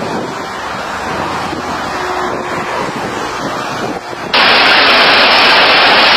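Steady rushing noise of an airplane's engine and wind. About four seconds in it cuts suddenly to a louder rush.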